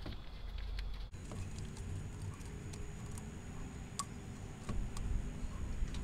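A quart bottle of thin Marvel Mystery Oil, upended in an engine's valve-cover oil filler, pouring into the crankcase, with scattered light clicks.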